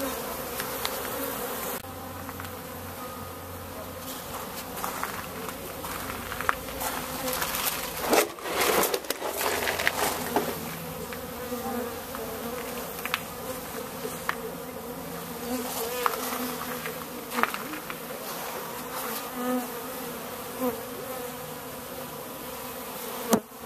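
Honey bees from a colony nesting in a wooden wine barrel buzzing in a steady hum, with single bees flying close past, their buzz swelling and fading. A few short crackles come about eight to ten seconds in.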